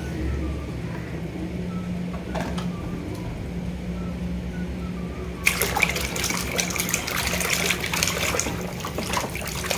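Muddy water splashing and sloshing in a plastic tub as a toy vehicle is scrubbed by hand. The splashing starts suddenly about halfway through, after a quieter stretch with a few faint clicks.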